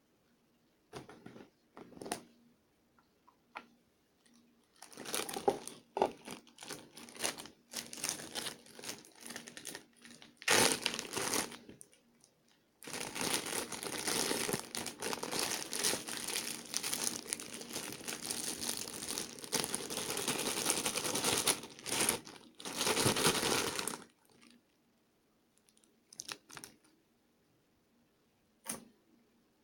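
Crinkling and rustling of something being handled. It comes first in short, irregular bursts, then runs on without a break for about ten seconds, and ends with a few scattered sharp clicks.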